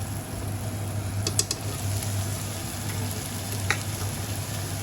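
Food sizzling in a frying pan, a steady hiss with a low hum under it, and a few sharp clicks of a utensil against the pan about a second and a half in and again near the end.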